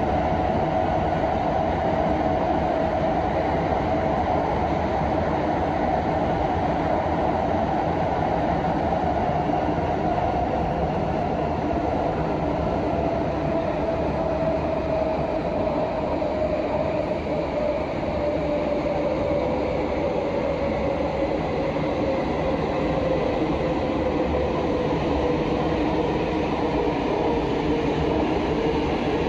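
Prague metro Line A train running in the tunnel: a steady rumble of wheels on rail under a motor whine that slowly falls in pitch as the train slows for the next station.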